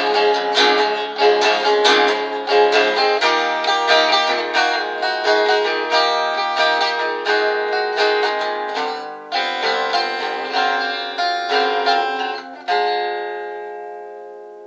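Guitar strumming chords, then one final chord a little before the end, left to ring and fade out as the song closes.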